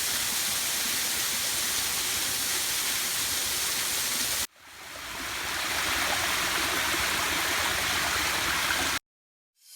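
Waterfall rushing: a steady, dense hiss of falling water. It breaks off suddenly about four and a half seconds in, fades back up, and cuts off abruptly near the end.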